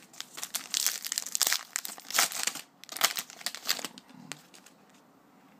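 A trading-card pack wrapper being torn open and crinkled by hand, a dense run of crackling for about four seconds that stops near the end.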